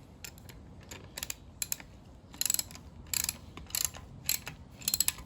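Quick runs of sharp metallic ratchet clicks, several in a row, as a stud remover tool is turned to grip an engine stud.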